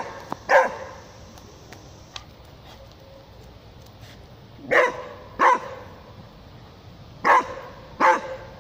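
Beagle barking at a cat: five short barks, one near the start, then two pairs in the second half, each pair a little under a second apart.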